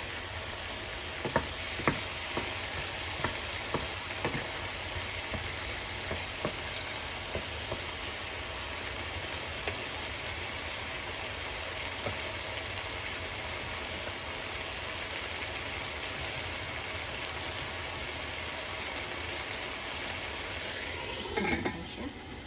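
Tomatoes and onions sizzling steadily in a nonstick frying pan, with a wooden spoon clicking against the pan a few times in the first seconds. Near the end a stainless steel lid is set down on the pan with a brief clatter.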